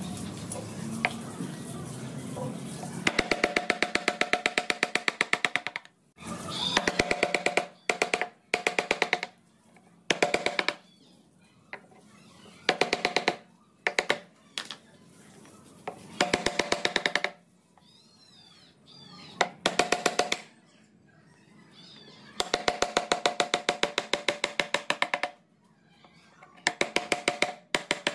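Woodcarver's mallet rapidly tapping a steel carving chisel into wood, in bursts of about one to two seconds of quick, even strikes with a ringing tone, separated by short pauses. The tapping starts about three seconds in.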